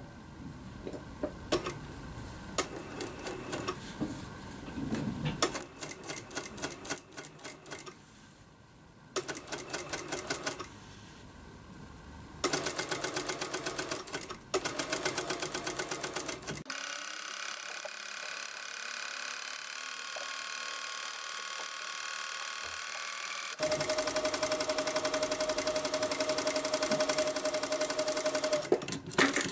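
Industrial lockstitch sewing machine stitching in several short runs with pauses between, the needle's strokes fast and evenly spaced; the longest, steadiest run comes near the end, sewing a gathered ruffle strip into a seam.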